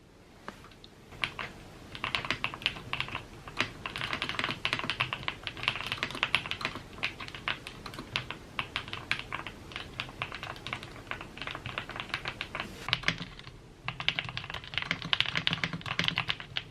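Typing on a GMK87 tenkeyless mechanical keyboard with linear switches: a fast, irregular run of key clacks, with a short pause about three-quarters of the way through before the typing picks up again.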